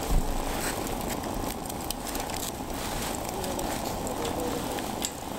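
Steady outdoor rumble with scattered small crackles from the fire under a pot on a camp fire grill, and one soft thump at the very start.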